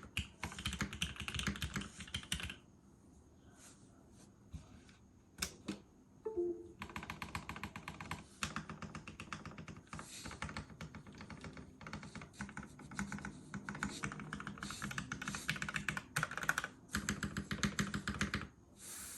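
Typing on a polycarbonate-cased mechanical keyboard with lubed and filmed Gateron Black Ink linear switches: quick runs of keystrokes, a pause of about four seconds with only a few single key presses, then a long steady run of typing.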